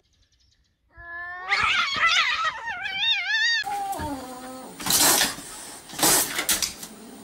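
A cat yowling, a long wavering cry that rises and wobbles in pitch, the sort a cat makes when squaring off with another cat. It stops suddenly about three and a half seconds in, and then a lower cat cry follows, with two short noisy bursts.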